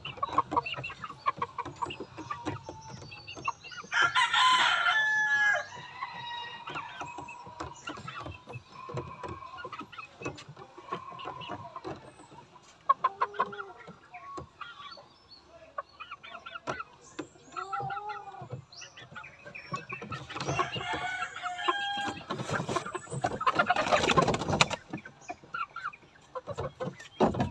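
Gamefowl chickens calling: a loud rooster crow about four seconds in, scattered clucks through the middle, and another loud stretch of calls near the end.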